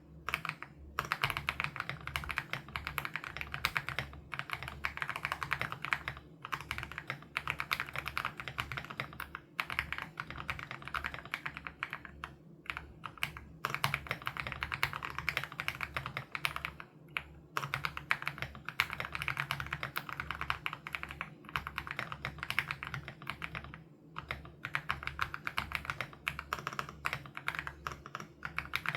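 Fast continuous typing on an Aula F87 Pro mechanical keyboard with HMX Sarcophagus switches: dense runs of keystrokes broken by a few brief pauses.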